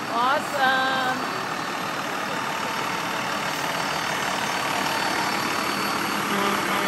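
A transit bus driving slowly past with its engine and road noise making a steady sound. Near the end a heavy truck approaches, and the low hum of its engine grows in.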